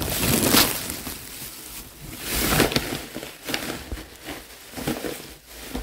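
Thin plastic bags rustling and crinkling unevenly as a handful of koorka (Chinese potatoes) is rubbed around inside them to scrub off the skin and soil.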